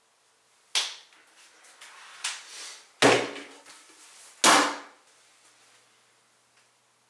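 Plastic bucket of bread dough set down on a wooden table and its plastic lid pressed on: a series of sharp knocks and clatters, the loudest two about a second and a half apart.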